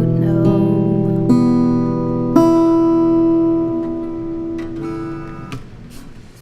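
Acoustic guitar playing the closing chords of a song: a few plucked chords in the first couple of seconds, then the last chord rings on and slowly fades away.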